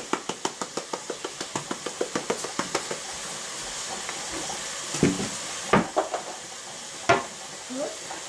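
Black pepper tin shaken over a pot, rattling at about five quick ticks a second for the first three seconds. Then three sharp knocks against the metal pot, about five, six and seven seconds in, over a faint sizzle of ground meat browning.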